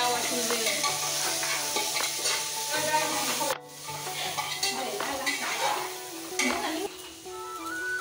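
A spoon stirring and scraping food that is frying and sizzling in an aluminium pressure cooker, with scattered clicks of the spoon against the pot. The sound cuts out briefly about three and a half seconds in.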